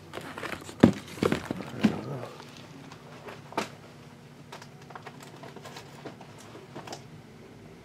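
Handling noise from trading card boxes and packs on a table: a quick run of taps and light knocks in the first two seconds, then only occasional faint taps and crinkles.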